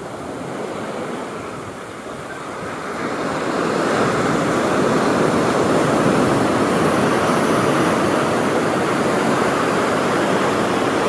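Ocean surf breaking and washing around rocky sea stacks and up a sandy beach: a continuous rush of waves that grows louder about three seconds in and then holds steady.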